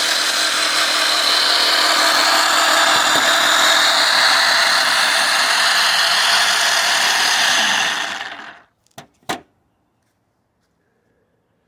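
Jigsaw-driven homemade band saw running steadily, then switched off about eight seconds in and winding down quickly. Two sharp clicks follow just after.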